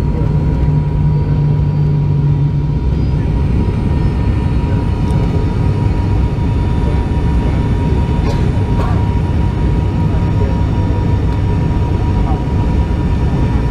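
Turboprop airliner's engine and propeller heard from inside the cabin, a steady loud drone on descent. A strong low hum stands out for the first few seconds, then merges back into the drone.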